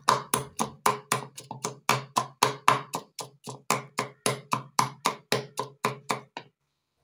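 Pestle pounding ginger and garlic in a mortar: a steady run of sharp knocks, about four a second, stopping about six and a half seconds in.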